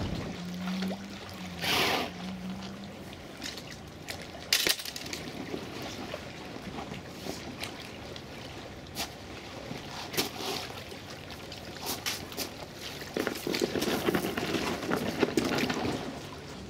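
Water sloshing and trickling around a kayak as it is paddled, with a few sharp knocks along the way.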